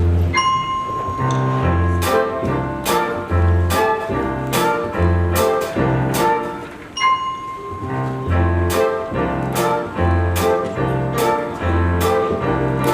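Instrumental theatre-musical accompaniment: piano and bass over a steady beat, with a low bass note about every second and a half and regular cymbal strikes.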